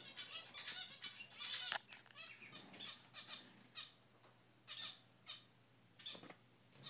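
Toy poodle's high-pitched squeaky play vocalizations while wrestling: a quick run of squeals in the first two seconds, then single short squeaks every second or so.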